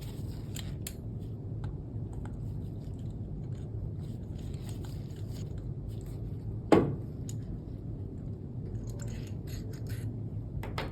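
Small screws being backed out with a torque wrench: faint, intermittent scraping and clicking of the tool and screws, with one sharp knock a little under seven seconds in.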